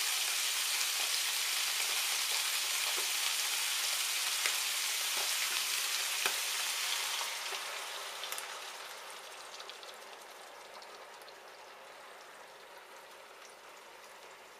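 Chicken livers and onions sizzling in butter in a frying pan, a steady crackling hiss. About halfway through the sizzle dies down over a few seconds as cold cream is poured in over the livers and cools the pan.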